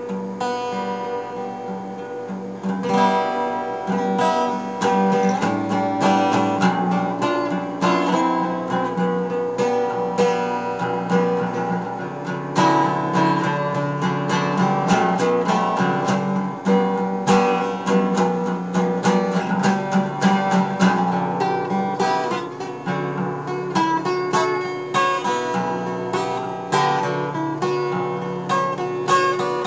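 Instrumental acoustic guitar music, plucked and strummed, dubbed from a tape recording.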